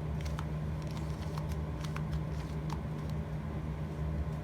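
2x2 Rubik's Cube being turned by hand through an algorithm: irregular quick plastic clicks as the layers snap round, over a steady low hum.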